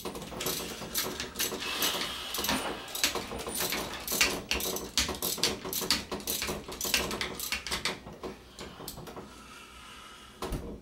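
Socket wrench with a hex bit ratcheting and clinking as it tightens the bottom bolt of a suspension fork's lower leg, a dense run of clicks and rattles that quietens near the end.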